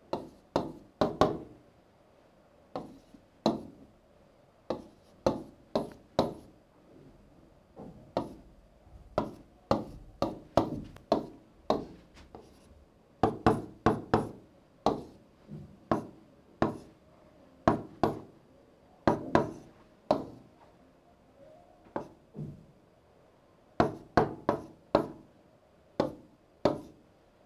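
A pen tapping and knocking on a writing board as figures are written out, in irregular clusters of sharp taps with short pauses between.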